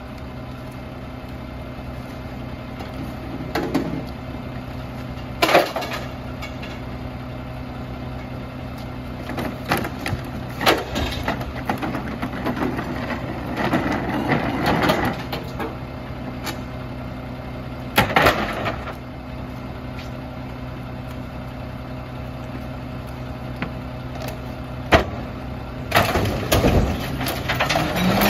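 Mack LR rear-loader garbage truck idling steadily while bulk junk (lawn chairs, boxes, boards) is thrown into its rear hopper, giving a series of loud clanks and thuds over the engine, with a stretch of rattling and clattering in the middle.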